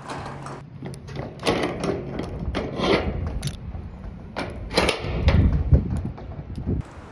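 Belongings being handled and moved: irregular knocks, thuds and clatter with rustling between them. A heavier, rumbling thud comes about five seconds in, and the sound cuts off suddenly near the end.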